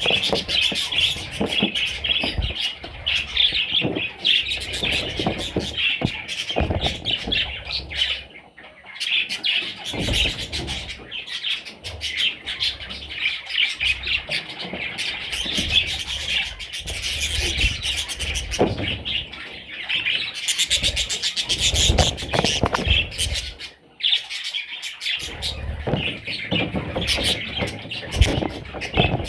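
Budgerigars chattering and warbling nonstop: a dense stream of fast, high chirps and clicks with only brief lulls.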